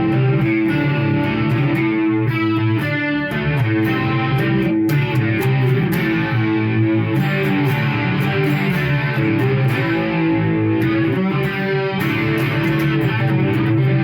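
Electric guitar played through a Marshall MG100HDFX amp head with its dampening switch on. The playing is continuous and steady in level, with most of its weight in the low end.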